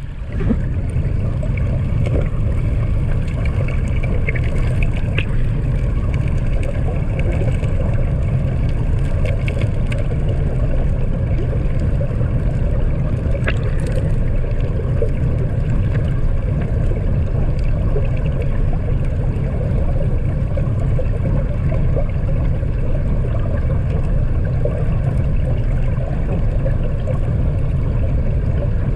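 Steady, muffled low rumble of river water flowing around a GoPro submerged in its waterproof housing, with a few faint clicks.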